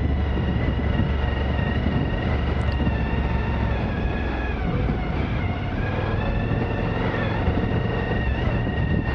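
Suzuki V-Strom 1000's V-twin engine running steadily under way, its pitch dipping and recovering slightly a few times, over a deep rumble from the ride.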